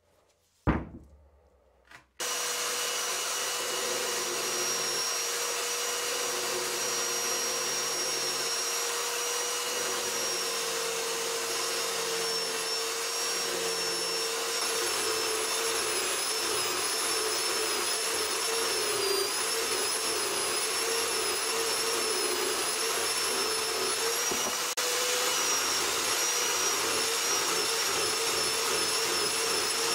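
Two knocks in the first two seconds as a rusty gear is knocked on a bench to shake out dirt. Then an angle grinder clamped in a vise starts and runs steadily with a wire cup brush, scrubbing rust off small cast gear parts held against it.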